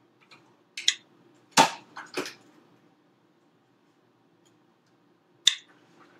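Four short, sharp clicks: one about a second in, two more close together in the next second, and one near the end, over a faint steady hum.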